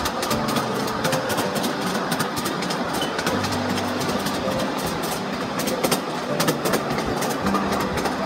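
Ride-on mini train running along its narrow track, with irregular clicks from the wheels on the rails, under music with held notes that change every second or so.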